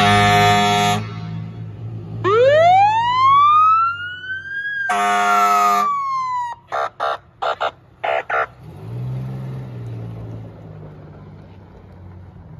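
Fire truck sounding its horns and siren: a long horn blast, then a siren wail that climbs for about two seconds and falls away slowly, a second horn blast in the middle of the wail, and about five quick horn toots. The truck's engine runs underneath and comes up near the end as the truck pulls in.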